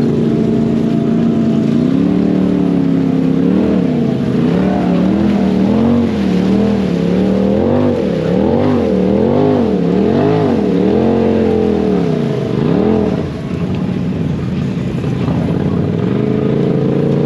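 Lifted side-by-side UTV's engine revving up and down again and again, about once a second, as it churns through deep, sticky mud on big mud tyres. The revs settle, then build steadily again near the end.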